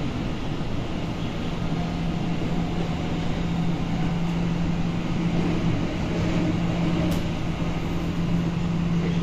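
Steady hum and rumble inside a Tokyo Metro Ginza Line subway car, with one low steady tone under it.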